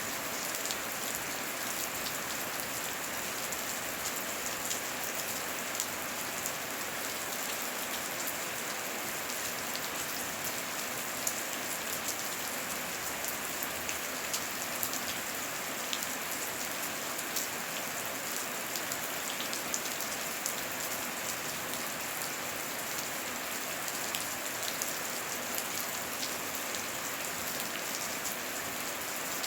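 Heavy rain falling steadily, with many individual drops clicking throughout. There is no thunder.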